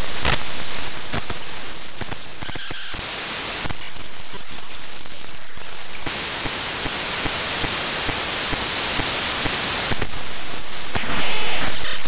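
Digital glitch noise made by importing a non-audio computer file into Audacity as raw data and playing it back. It is loud, harsh static that changes texture and level abruptly every few seconds.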